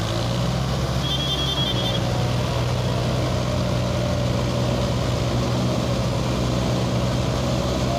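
Diesel engines of a tractor and a JCB backhoe loader running steadily as they pull and push a trailer heavily loaded with sugarcane. A short high warbling chirp comes about a second in.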